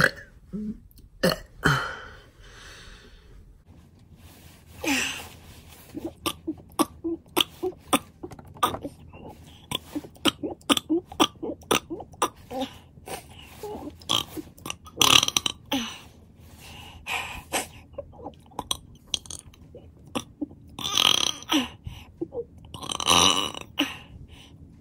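A person burping over and over on purpose, forcing out one burp after another. There is a long burp about five seconds in, then a quick run of short clicks and small burps, and louder, longer burps about fifteen seconds in and twice near the end.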